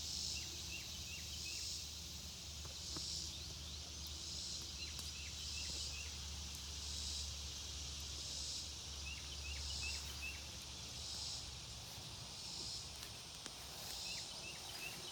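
Outdoor insect chorus with a high buzzing that swells and fades steadily about once every second and a half, and scattered faint chirps over a steady low hum.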